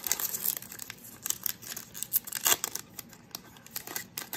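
Foil wrapper of a 2020 Absolute NFL football card pack being torn open and crinkled by hand: a run of irregular sharp crackles and rips.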